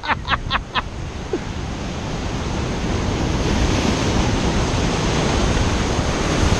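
Ocean surf washing in, its rushing noise swelling over the first few seconds and then holding, with wind on the microphone. A few short whoops from a man's voice in the first second.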